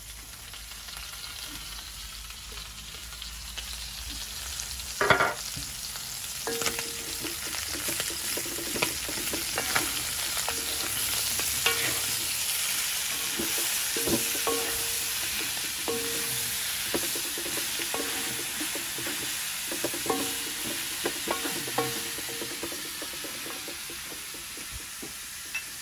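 Sliced onion and pork pieces sizzling in a cast-iron wok while a wooden spatula stirs them, with scrapes and knocks of the spatula on the pan. The frying grows louder a few seconds in, with a sharp clatter about five seconds in.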